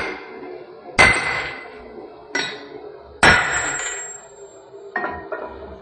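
Hammer blows on metal, five strikes at uneven intervals, each leaving a short metallic ring. The last two strikes come close together near the end.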